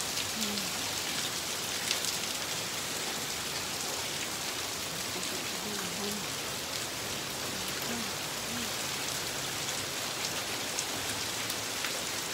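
Heavy rain falling steadily on a street and roof, a dense even hiss with a few sharp ticks scattered through it.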